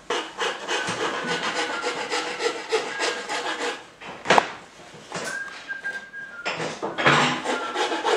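Wood being rubbed or scraped in fast repeated strokes, several a second, with one sharp knock about four seconds in.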